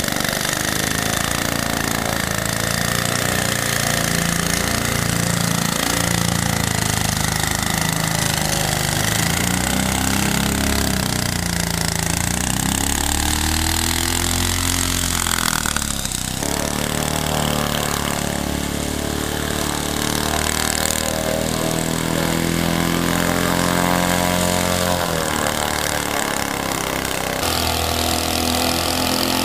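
Turbocharged Sachs KM914A single-rotor Wankel engine running a fan boat's propeller, its pitch rising and falling as the engine speed changes, with an abrupt change in the sound about halfway through.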